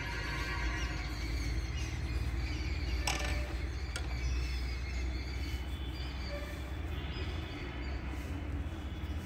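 Outdoor ambience: a steady low rumble with birds chirping faintly, and two sharp clicks about three and four seconds in.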